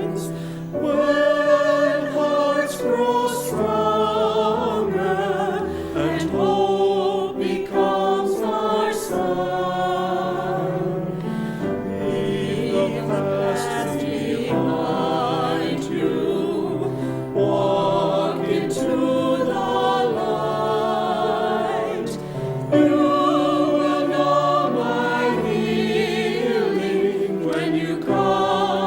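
Choir singing a sacred anthem, with vibrato on the held notes.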